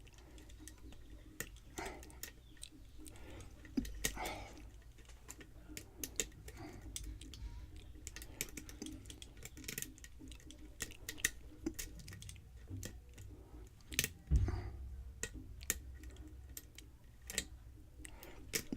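Lock pick working the pins of a Schlage pin-tumbler lock under tension: irregular small metallic clicks and light scraping, with a louder knock about fourteen seconds in.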